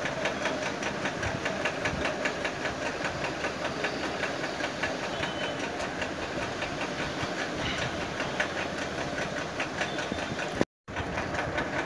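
Egg and vegetable fritters frying in hot oil in a nonstick paniyaram pan over a medium flame: a steady sizzle with dense fine crackling. The sound cuts out for a moment near the end.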